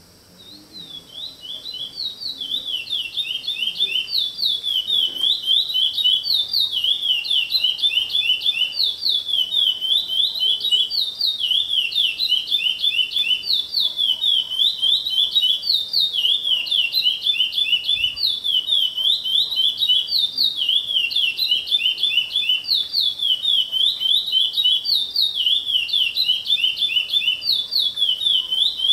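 A caged songbird singing a long unbroken song of rapid, high repeated notes in quick rising-and-falling phrases. The song starts just after the opening and grows louder over the first few seconds.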